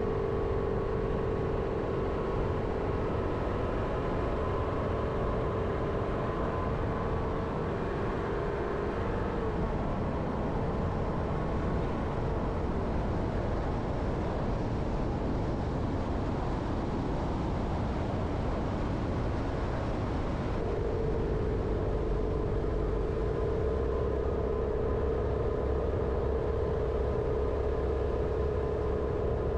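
Jeep Renegade driving at a steady pace: continuous engine and tyre rumble with a steady droning tone that fades out for about ten seconds in the middle, then comes back.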